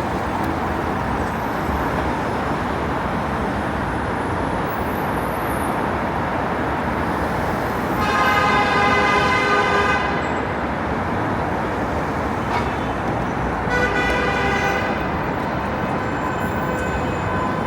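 Steady road traffic noise, with a vehicle horn honking twice: a long honk of about two seconds a little before halfway through, and a shorter one about three-quarters of the way through.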